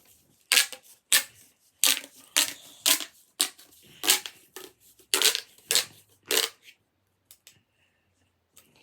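Plastic pop tube fidget toy being stretched and squashed: about eleven short noisy strokes, roughly two a second, stopping about six and a half seconds in.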